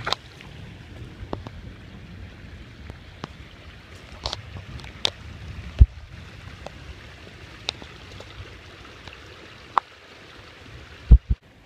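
Muddy monsoon floodwater flowing down a wash, a steady watery noise with scattered sharp knocks, the loudest about halfway through and two close together near the end.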